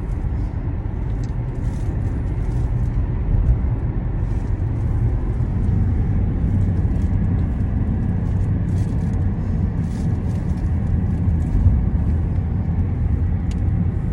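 Steady low rumble of a car's engine and tyres heard from inside the moving car.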